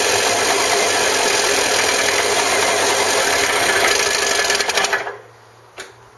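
Goggomobil T250's two-stroke engine running, then stumbling and cutting out about five seconds in. A single click follows.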